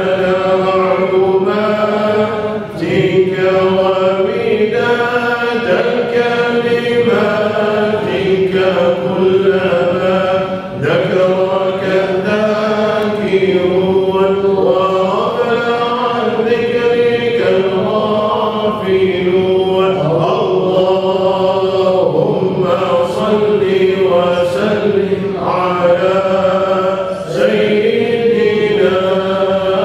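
Devotional chanting of Islamic thikr (dhikr) by a group of voices together: a slow, melodic refrain sung on long held notes that goes on without a break.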